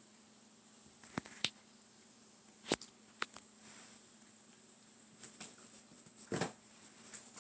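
Irregular small clicks and light knocks, with a louder, duller thump about six seconds in, over a faint steady hum.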